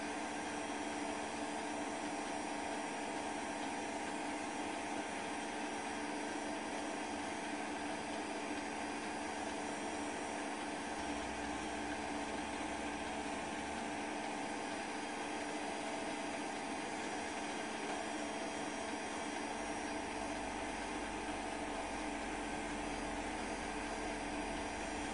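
Steady hum and hiss with a few fixed tones, unchanging and without any distinct events.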